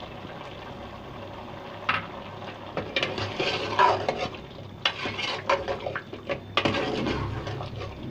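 Metal ladle stirring and scraping chunks of tripe around a metal pot, with irregular clinks against the pot, as the tripe starts frying in freshly added oil. A faint steady hiss comes first, and the stirring starts about two seconds in.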